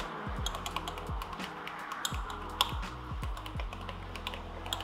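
A stirring stick clicking and scraping against the inside of a glass measuring cup as a hot soft-plastic lure mix is stirred, in many quick irregular ticks with one sharper click about halfway through. Background music with deep bass hits plays underneath.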